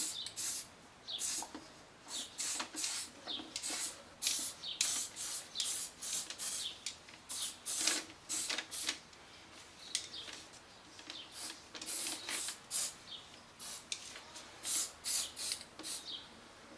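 Aerosol can of spray adhesive sprayed in many short hissing bursts, about two a second.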